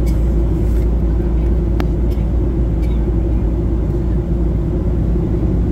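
Steady cabin drone of a Boeing 737-800 in flight: a deep rumble of engines and airflow with a constant hum. The laminated safety card rustles briefly as it is pulled from the seat-back pocket at the start, and there is a single light click a little under two seconds in.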